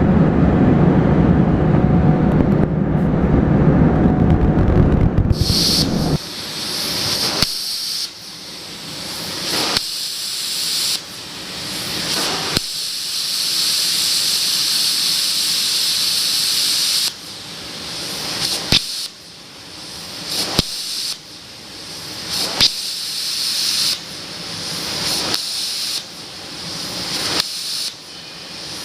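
Hypertherm XPR300 plasma torch cutting: a loud hiss that cuts off and restarts with a sharp crack every one to few seconds as the torch pierces and cuts a run of pieces. For about the first six seconds a loud low rumbling noise comes first instead.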